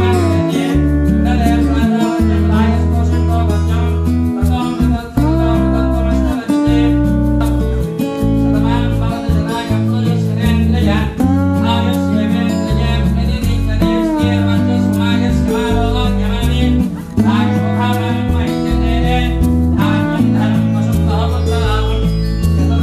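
Background music: a song with a singing voice over plucked string instruments.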